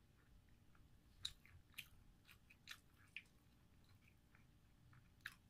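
Faint eating sounds: a scattering of short, soft mouth smacks and clicks from chewing, with a low room hush.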